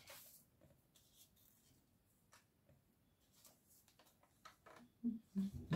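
Faint paper handling: soft rustles and scattered light ticks as a strip of printed paper sentiments is picked up and turned in the hands.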